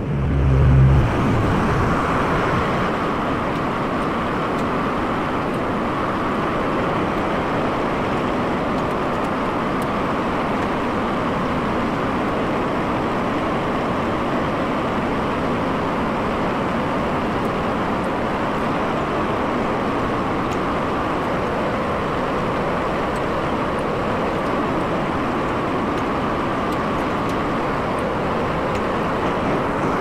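A tractor engine running steadily, with a short deep thump at the very start.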